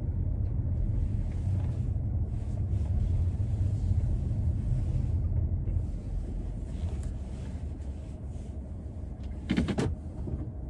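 A car driving, heard from inside the cabin: a steady low road and engine rumble that eases off about six seconds in as the car slows, with one brief sharp sound near the end.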